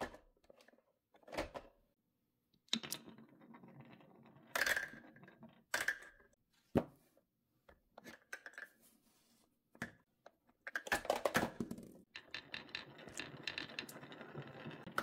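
Glass marbles clicking against a plastic toy truck's bin and rolling along the wavy groove of a beech-wood marble-run track, clacking against one another. Scattered clicks and short rattling runs come first, then a longer, denser run of rolling and clacking in the last few seconds.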